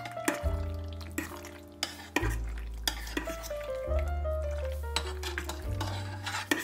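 A utensil stirring pasta and broccoli through a thick cheese sauce in a stainless steel pot, with wet stirring sounds and frequent short clicks against the pot. Background music plays underneath, its bass note changing every couple of seconds.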